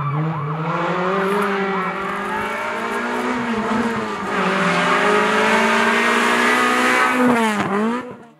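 Renault Clio hill-climb car's 2-litre engine under hard acceleration, revs climbing and dropping with each gear change as the car approaches and grows louder. Near the end the pitch dips sharply and climbs again as it comes close, then the sound cuts off suddenly.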